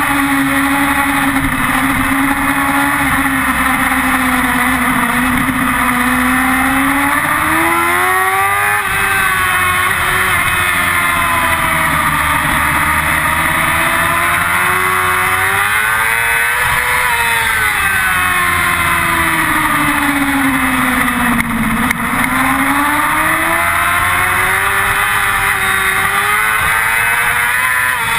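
Yamaha R6's inline-four engine running at high revs, its pitch climbing and dropping several times as the rider accelerates and backs off, under loud wind rush on the microphone.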